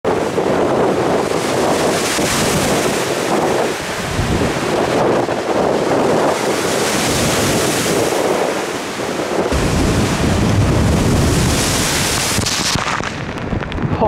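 Storm waves on Lake Michigan breaking over a rock breakwater in gale-force wind: a loud, surging rush of surf that swells and eases every second or two. From about two-thirds of the way in, strong gusts buffet the microphone with a deep rumble.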